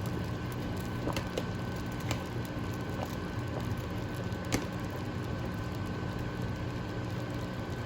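Pot of shrimp boil soup cooking on the stove: a steady hum with a handful of light, sharp pops, the sharpest about four and a half seconds in.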